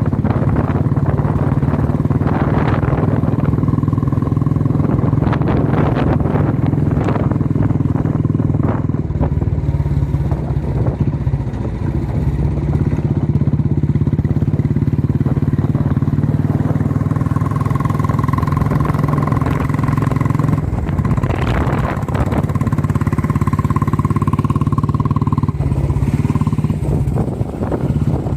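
A motor vehicle's engine running steadily. A high steady tone sounds twice, for about three seconds each, in the second half.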